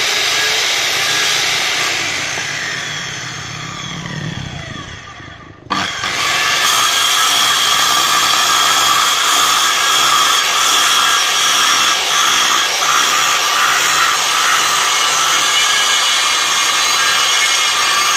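Maktec circular saw running free without cutting. Its motor whine falls away as it winds down for several seconds. About six seconds in it is switched on again and runs up to a steady high whine.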